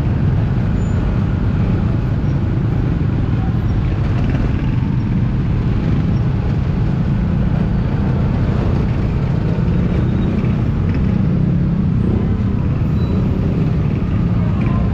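Motor scooter engine and the surrounding motorbikes and tricycles running in slow street traffic: a steady low rumble of traffic noise.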